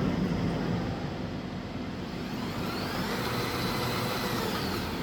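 Machine running with a steady low hum, and a motor whine that rises in pitch from about two seconds in and falls again near the end, as a drive speeds up and slows down.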